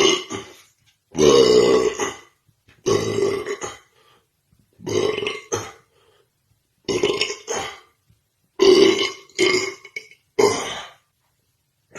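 A person burping over and over: a string of about eight deep, drawn-out burps, each under a second, with short pauses between them.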